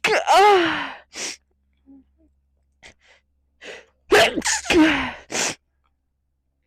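A woman sneezing over and over in a sneezing fit: a sneeze right at the start with a second short one just after, small breaths between, then three quick sneezes in a row about four seconds in.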